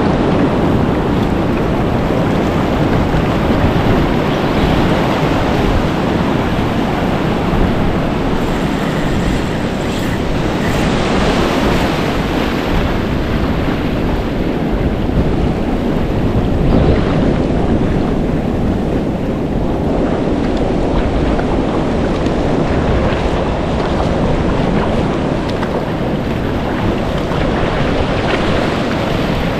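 Surf breaking on the shore, heard as a steady loud roar, with wind buffeting the microphone.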